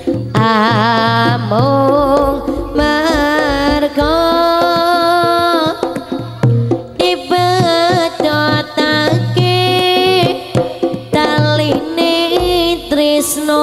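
Live Javanese jaranan gamelan music, with hand-drum (kendang) strokes under a high, wavering melody line whose pitch bends and slides.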